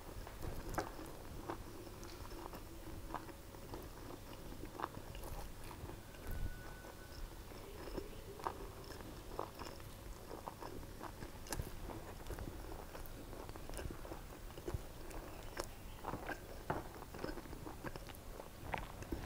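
Close-up chewing and biting of a mouthful of mutton biryani, with scattered light clicks of a metal spoon against the plate.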